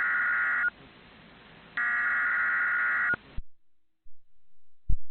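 Emergency Alert System SAME digital data bursts from a weather radio broadcast, the end-of-message code closing a severe thunderstorm warning: one burst ends less than a second in and a second, over a second long, follows about a second later. The radio hiss then cuts off suddenly, and a single sharp click sounds near the end.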